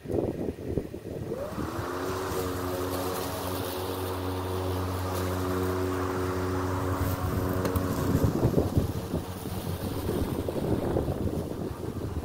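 Hart 40V 20-inch battery mower's electric motor spinning up with a rising whine about a second and a half in, then running with a steady hum. After about eight seconds the hum gives way to a rougher, uneven noise as the mower is pushed through the grass, with wind buffeting the microphone.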